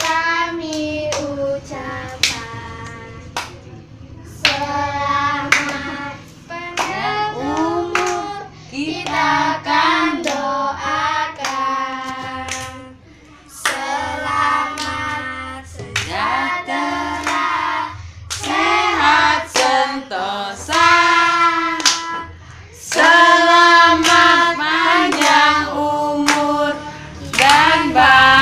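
A small group of young children singing a song together, with hand claps along with the singing.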